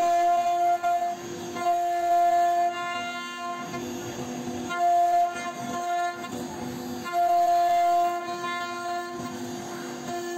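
CNC router spindle running with a steady high whine. The whine swells loud for about a second at a time, four times, and between the swells comes the quieter rasp of the router bit cutting into the wooden bed panel.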